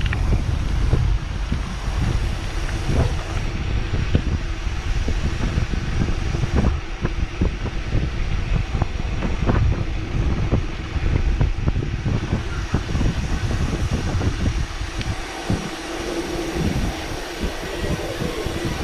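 Heavy wind buffeting the microphone of a bike descending fast downhill, with the bike rattling and knocking irregularly over rough ground. A steady hum comes in near the end.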